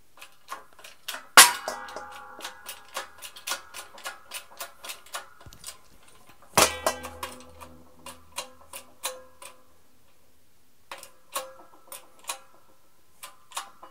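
Hand-pumped hydraulic shop press being worked as its ram lowers onto a steel punch and die: a run of sharp clicks about three a second, broken by two loud metallic bangs that ring on, about 1.5 s and 6.5 s in, and a short pause before the clicking resumes.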